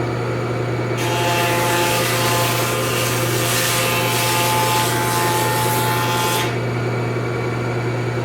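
Hammer C3-31 combination machine's jointer cutterhead running with a steady hum while a board is fed across it to joint its edge; the cutting noise starts about a second in and stops about a second and a half before the end.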